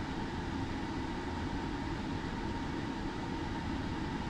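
Steady background noise: a low rumble and hiss with a faint steady tone, unchanging throughout.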